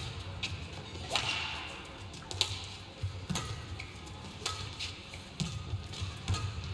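Badminton rally: rackets striking a shuttlecock back and forth, a sharp crack roughly once a second.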